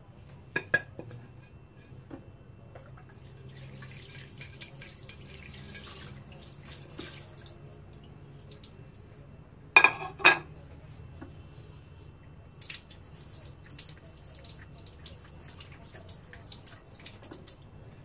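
Dishes being handled on a kitchen counter: a few light clicks early on, then two sharp knocks close together about ten seconds in, with faint scraping and rustling between.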